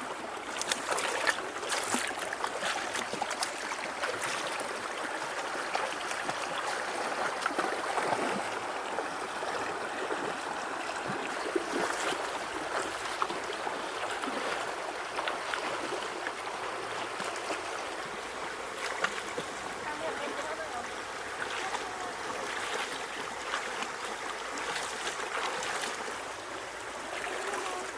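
Shallow river water running and babbling, with many small splashes and sloshes scattered through it.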